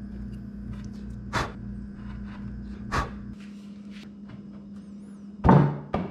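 A chisel makes two short, sharp cuts paring the cheek of a wooden tenon, over a steady low hum that stops partway through. Near the end there is a louder wooden knock.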